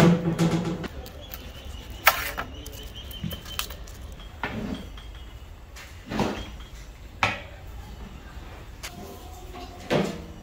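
Metal clanks and scrapes from a large aluminium cooking pot as its lid is handled and a long metal paddle stirs and knocks against it. The sounds come as several separate knocks a second or two apart over a faint steady background.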